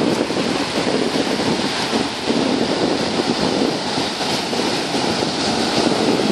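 Ocean surf washing and breaking on the shore, with wind buffeting the microphone as a steady rumbling hiss.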